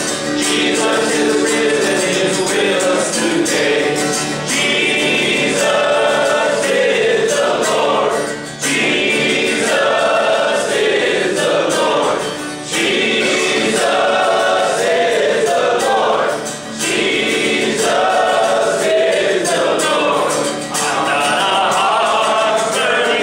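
A group of men singing a worship song together, led by a man singing to an acoustic guitar, in sung lines that pause briefly about every four seconds.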